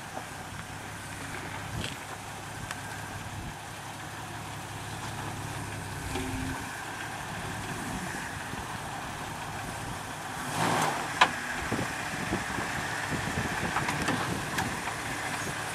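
A 2004 Jeep Wrangler Rubicon's 4.0-litre straight-six engine running steadily at low idle as the Jeep crawls down over rock, with a sharp knock about eleven seconds in.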